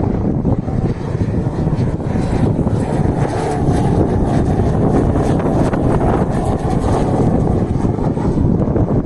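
Beechcraft T-6 Texan II single-engine turboprop trainer passing low overhead on landing approach with its gear down, a steady engine and propeller drone that swells a little in the middle as it passes. Wind buffets the microphone throughout.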